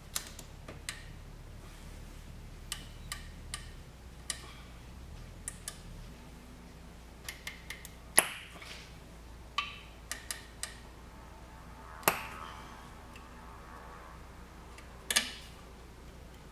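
Scattered clicks and taps of hands working on the wiring and plug connectors in a car's engine bay, with sharper knocks about eight, twelve and fifteen seconds in.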